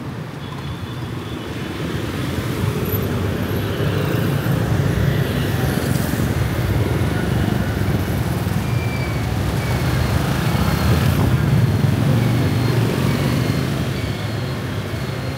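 City street traffic of motorbikes and cars passing close by: a steady din of small engines and tyres that grows louder toward the middle and eases off near the end.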